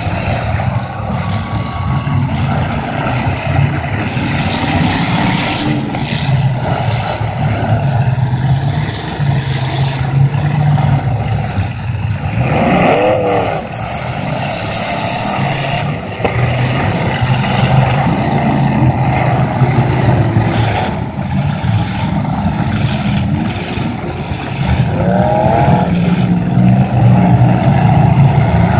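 Many full-size demolition derby cars' engines revving hard at once, loud and continuous, with pitch rising and falling as drivers floor them, and scattered sharp crashes of the cars ramming into each other.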